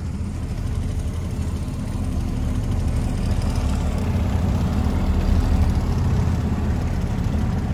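Outboard motor running steadily at low speed: a continuous low engine hum that swells a little partway through.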